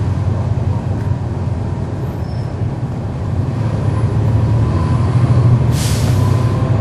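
The Cummins ISL9 inline-six diesel of a 2011 NABI 416.15 transit bus, heard from inside at the rear of the bus, running under way with a steady drone that grows louder a few seconds in. A short hiss of air comes near the end.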